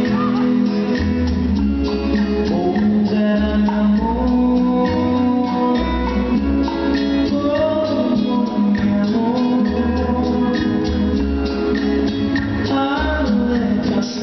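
Latin ballroom dance music with a singing voice over a repeating bass line, played for competing dancers.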